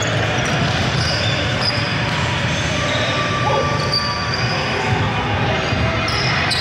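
Basketball game sounds: a ball bouncing on the court, sneakers squeaking in short high chirps, and players' voices.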